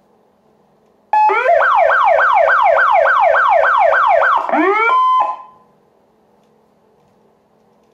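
Elfir Zura PS100r electronic police siren: a short steady beep, then about three seconds of fast upward sweeps, about three a second, before the pitch glides down, holds a steady tone briefly and dies away. A faint low hum lies under the quiet stretches before and after.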